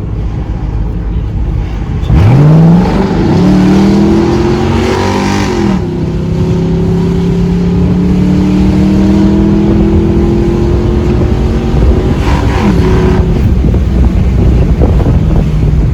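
2001 Mustang GT's 4.6-litre V8 accelerating hard from a rolling start about two seconds in, the engine note climbing quickly, breaking off and climbing again twice, then pulling steadily higher until the throttle is let off about thirteen seconds in. Road rumble runs underneath throughout.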